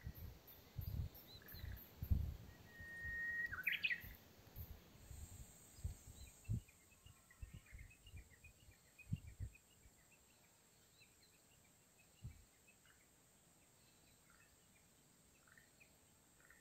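Small birds chirping and calling: a held whistled note about three seconds in that breaks into a quick rising call, then many short, soft chirps through the second half. Low thumps and rumbles on the microphone during the first ten seconds.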